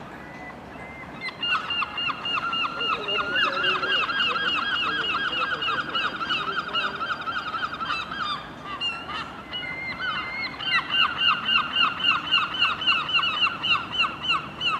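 Wheel squeal from a Class 802 train rounding a tight curve at low speed: a high, pulsing squeal repeating about three to four times a second, stopping briefly around the middle and then returning louder.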